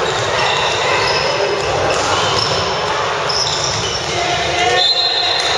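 Basketball game in a gymnasium: the ball bouncing on the wooden court, shoes squeaking high and short again and again, and players' voices calling out, all echoing in the hall.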